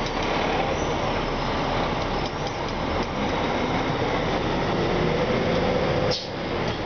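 Heavy-haul semi truck pulling a long multi-axle trailer past at low speed: a steady rumble of the truck and its many rolling tyres, with a brief dip about six seconds in.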